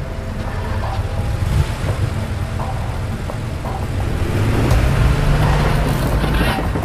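Car engine sound in the soundtrack of a projection show, a deep rumble that grows louder about four seconds in.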